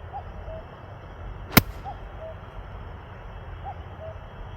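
A golf club strikes the ball once about a second and a half in: a single sharp crack. Faintly behind it, a bird repeats a short two-note call about every two seconds.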